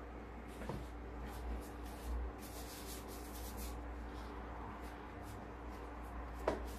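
Faint rustling and light handling noises of hands rolling and pressing small balls of cookie dough, over a steady low hum.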